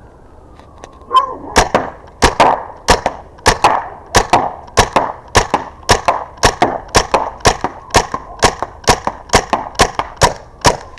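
Byrna Mission 4 CO2 marker rifle firing a rapid string of .68 calibre rounds, about three sharp cracks a second, starting about a second in.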